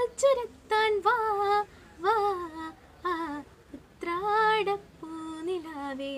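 A young woman singing solo and unaccompanied, in phrases of held notes that bend and waver in pitch.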